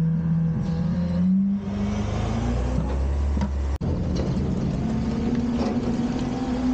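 Front-loader garbage truck's engine running, its pitch rising as it revs up. Just before four seconds in the sound cuts out for an instant, and a steady engine drone carries on.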